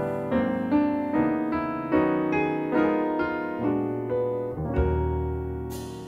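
Background music: a piano playing a steady run of notes, with a low bass note coming in near the end.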